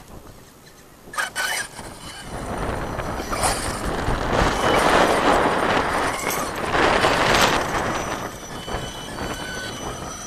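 Electric 1/8-scale RC truggy (Associated RC8T-e) driving hard on dirt and grass: its knobby soft-compound tyres scrabble and throw up dirt under the motor's faint high whine. The sound builds from about two seconds in, is loudest in two surges in the middle, then eases off.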